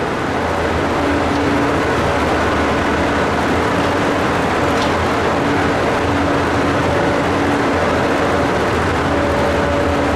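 Steady, loud engine noise with a faint hum that comes and goes.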